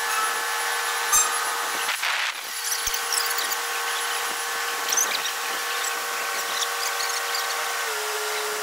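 Crane engine and hydraulics running under load with a steady whine. The pitch drops a little near the end. A couple of light clicks and a brief rush of noise about two seconds in.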